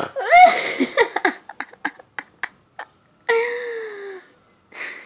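A baby's frightened whimpering cries, broken by a run of about eight quick sharp clicks, then one longer cry with a slightly falling pitch about three seconds in.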